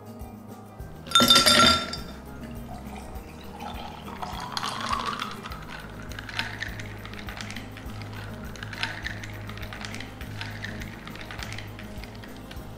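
A loud, ringing glassy clink about a second in, then cola poured from a bottle into a tall glass, gurgling and fizzing, the pitch rising as the glass fills.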